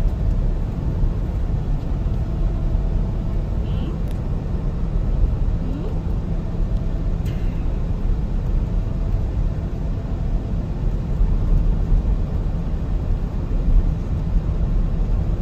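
Steady low rumble of a car's tyres and engine heard from inside the cabin while driving along a road.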